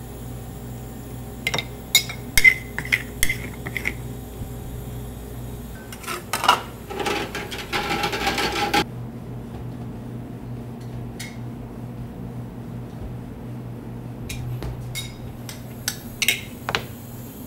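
Metal spatulas tapping and scraping ice cream on a frozen stone slab as it is mixed: a run of sharp clinks, a few seconds of scraping, then scattered taps.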